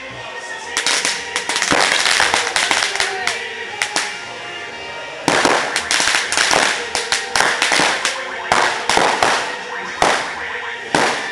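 Firecrackers going off in a burning Año Viejo effigy, in rapid crackling strings about a second in. After a short lull, a sudden louder run starts a little past the middle, then separate bangs follow every half second or so.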